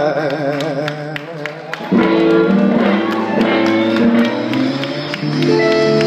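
Live blues band: the singer holds a last note with a wide vibrato, and it fades away. At about two seconds the band comes in with guitar and full chords and plays on.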